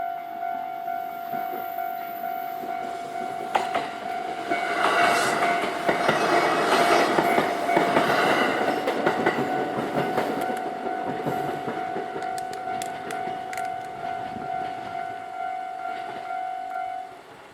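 Japanese level-crossing warning bell ringing in a steady pulsing tone while a JR Wakayama Line train passes over the crossing. The train's wheels clatter over the rail joints, loudest about six to nine seconds in. The bell stops just before the end.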